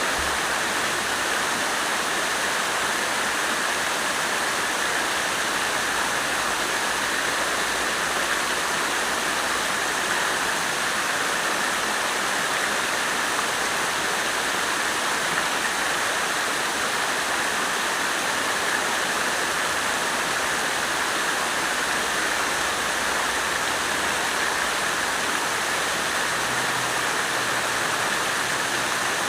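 Water fountain splashing steadily, a continuous even rush of falling water.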